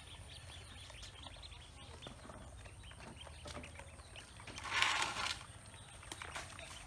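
Ducklings feeding in a plastic basin: many small quick pecking taps and scrabbling, with a louder burst of scuffling about five seconds in.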